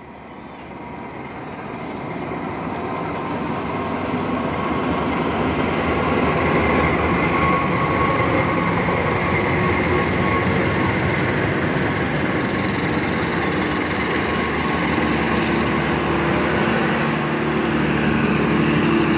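CC 206 diesel-electric locomotive pulling out past the microphone, its engine growing louder over the first several seconds. The passenger coaches it hauls then follow, rolling by on the rails.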